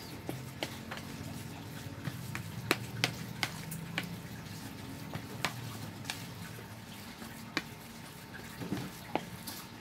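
An orange plastic spatula stirring a moist, crumbly fish-bait mix in a plastic bowl: soft scraping with irregular light clicks of the spatula knocking the bowl's sides, a few per second at most.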